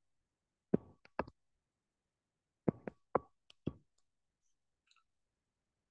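Sharp taps of a stylus on a tablet screen during handwriting, in two quick clusters: about three taps a second in, then about five more around three seconds in.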